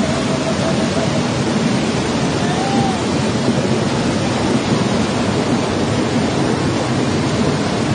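Torrential rain and floodwater rushing down a street, a loud steady noise with no breaks.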